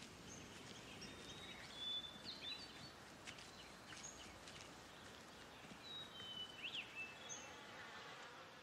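Faint natural ambience with scattered short bird chirps and whistled calls over a low, even background hiss.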